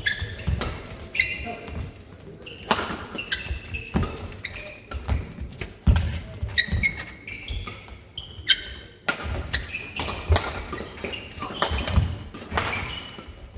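Badminton rally: sharp racket strikes on the shuttlecock every second or so, court shoes squeaking on the floor, and thuds of footwork and lunges.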